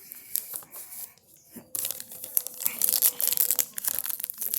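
A baseball trading-card pack's wrapper being torn open and crinkled by hand: light handling, then about two seconds in a dense, continuous crackling tear.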